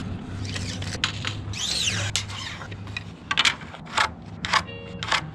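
Pencil scratching marks onto a wooden framing board, with a run of short strokes about two a second in the second half, over a faint steady low hum.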